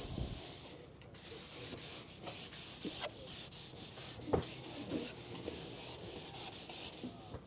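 Faint rubbing and scraping close by, with a few light knocks.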